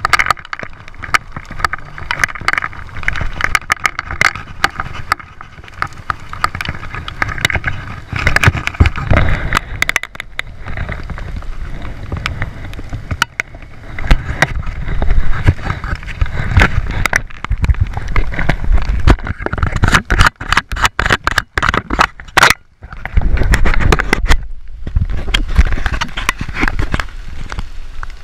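Heavy rain in a storm on an action camera's microphone: gusts of wind rumbling and surging, with many sharp clicks of raindrops striking the camera. The wind drops out briefly twice near the end.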